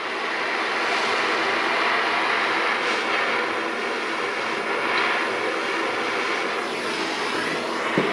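Handheld torch flame with a steady rushing hiss, held on the boat's stuffing tube to heat it until the epoxy holding the tube lets go.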